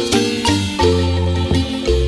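Marimba music: a son played with quick mallet strokes on ringing bars over a deep bass line, in a steady dance rhythm.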